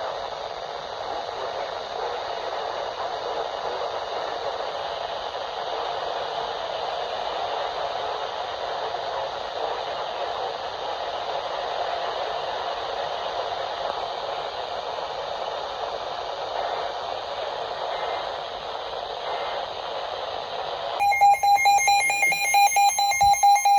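Weather radio receiver putting out a steady static hiss on a channel with no voice, then about 21 seconds in a loud burst of rapid buzzing data tones: the SAME digital header that opens an Emergency Alert System message.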